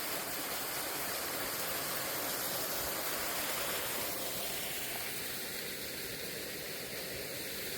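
Small waterfall: a steady rush of falling water splashing onto rocks.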